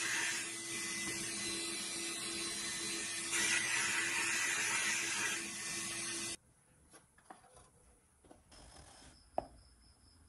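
Sandblast cabinet running: a steady hiss and hum, with a stretch of harsher hiss from about 3 to 5 seconds in as the blast gun fires. It cuts off suddenly about 6 seconds in, leaving quiet clicks and scrapes of a plastic scoop in a tub of powder, with one sharp tap near the end.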